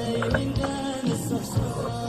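Background music with a steady beat and a sung or melodic line gliding between held notes.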